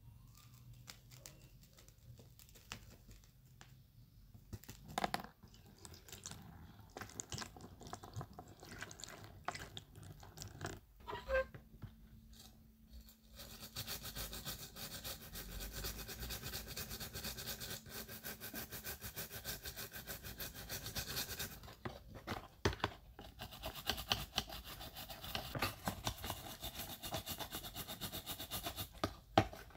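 Quiet handling of a part with a few sharp clicks, then, from about halfway, a stiff plastic brush scrubbing a grimy part in soapy water in a plastic tub: a fast, steady scratching that pauses briefly once.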